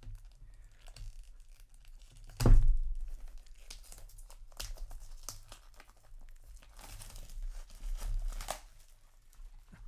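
A sealed trading card display box being torn open: tearing and crinkling of its wrapping and cardboard, with one loud rip about two and a half seconds in and further scattered tearing after it.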